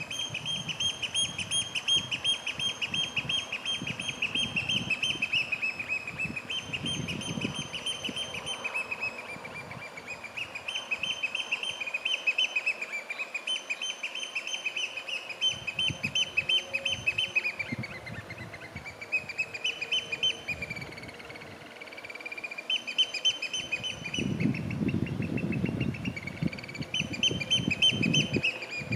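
Eurasian oystercatcher display calling: long runs of rapid, loud piping notes that break off briefly several times and start again, the courtship and territorial display of the breeding season. Traffic rumbles low in the background, most near the end.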